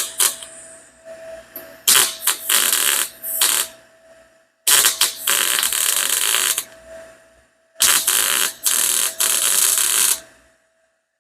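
MIG welder running weld beads on an exhaust header: four bursts of crackling sizzle, each about two to three seconds long, with short pauses between as the torch trigger is released.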